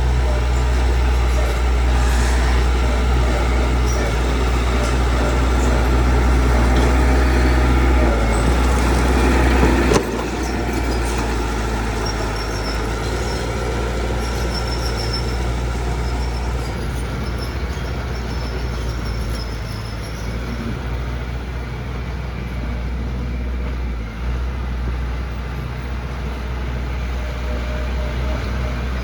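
Heavy diesel engine of a construction machine running steadily with a deep hum, louder for the first ten seconds, then dropping abruptly to a lower level.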